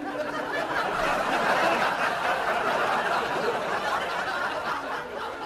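Sitcom studio audience laughing, easing off near the end.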